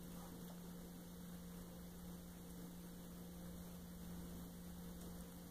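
Faint room tone with a steady low hum, unchanging throughout.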